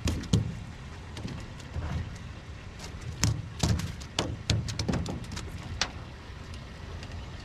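Irregular knocks, clicks and low thuds of gear and movement on the deck of a fishing boat.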